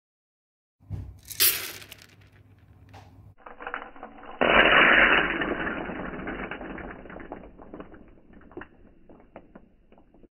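A sharp crack about a second and a half in, then a burst of roasted coffee beans clattering onto a plastic cutting mat. The clatter sounds dull and low, and it dies away over several seconds into scattered ticks as the beans settle.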